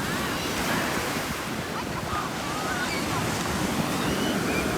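Ocean surf washing steadily onto the beach, as a continuous rushing noise.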